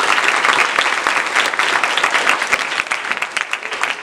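Audience applauding: many hands clapping at once, slowly thinning out near the end.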